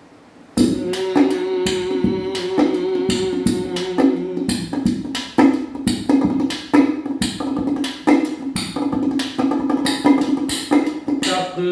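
Instrumental intro of a song: sustained melody notes over a busy beat of drum strikes, starting about half a second in.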